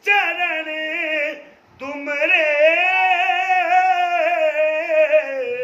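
A woman singing a Sufi devotional song unaccompanied, drawing out the words in long wavering notes: a short phrase, a brief breath, then one long held note from about two seconds in.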